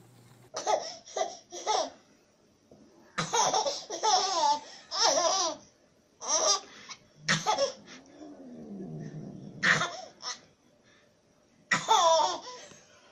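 A baby laughing in repeated bursts of belly laughs and giggles, with short pauses between them.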